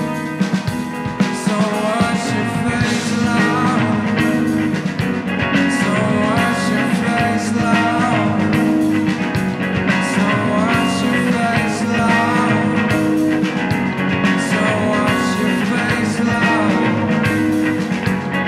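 Live band playing rock music, with electric guitar in the mix.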